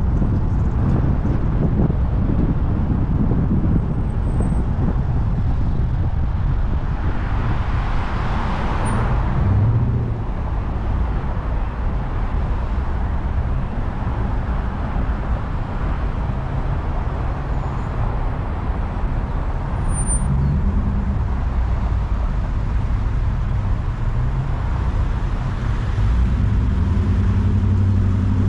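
Car driving in traffic: steady low engine and road rumble, with a louder rushing swell, like a vehicle going by, about eight seconds in.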